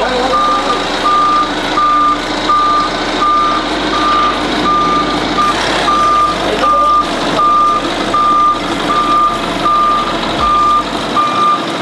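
Toyota forklift's reversing alarm beeping steadily as the forklift backs up carrying a heavy load. Even single-pitched beeps come about three every two seconds.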